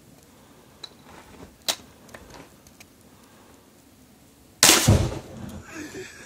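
A gun fired at can targets: two light sharp clicks, then one loud shot about four and a half seconds in.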